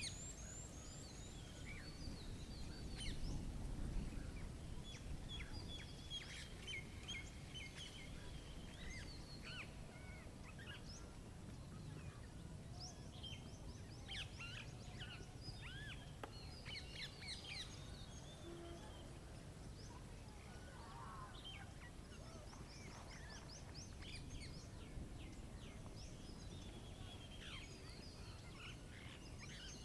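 Several wild birds chirping and trilling, with short high calls and quick trills scattered throughout, over a faint steady low rumble of outdoor background noise.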